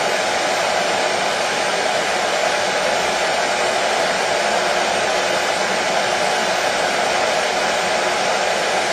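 Hair dryer running steadily: an even rush of fan and air noise that does not change.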